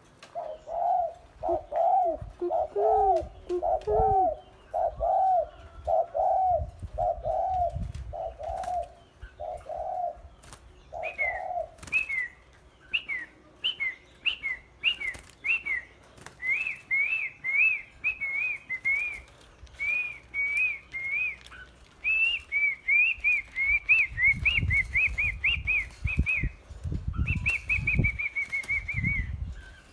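Birds singing: a run of repeated low, cooing-like notes, about one a second, for the first ten seconds or so. Then comes a quicker, higher song of short up-and-down whistled notes for the rest. Low rumbles sound under the song near the end.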